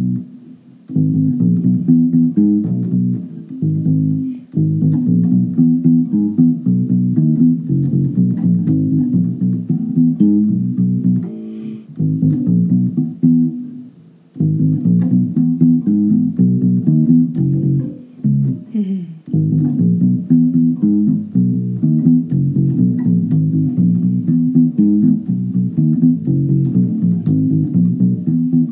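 Short-scale Fender Mustang electric bass played through an amplifier: a continuous run of plucked notes with a few brief pauses. The tone is clear and crisp, with no hum.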